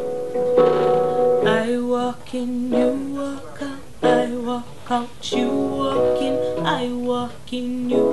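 Live acoustic pop-soul music: a plucked guitar playing a run of chords and notes with a singer's voice.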